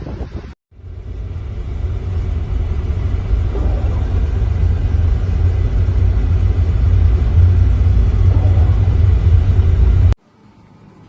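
Loud, steady low rumble that slowly builds, starting just after a brief cut to silence and stopping abruptly about ten seconds in.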